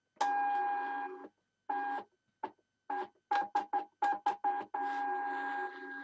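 Zebra GK420d thermal label printer's stepper motor whining as it feeds labels during a manual calibration. It makes a run of about a second, then a string of short stop-start feeds, then runs steadily from near the end as it prints the sensor profile.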